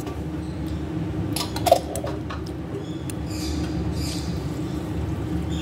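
Steady low kitchen hum with a few light clicks and clinks, the sharpest about one and three-quarter seconds in, and soft rustling later on.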